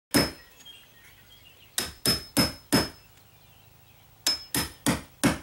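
Hammer tapping a wood chisel to cut the mortise for a deadbolt strike plate in a door jamb. Nine sharp strikes, one and then two quick runs of four, several with a brief metallic ring.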